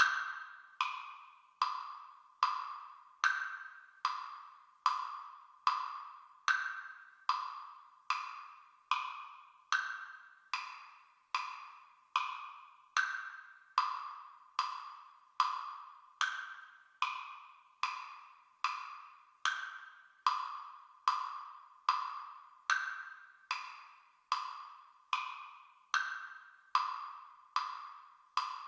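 Metronome clicking steadily at about 74 beats a minute, with every fourth click accented, marking four-beat bars.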